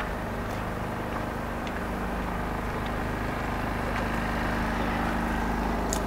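Steady rumble of distant city traffic, growing slightly louder toward the end, with a few faint clicks.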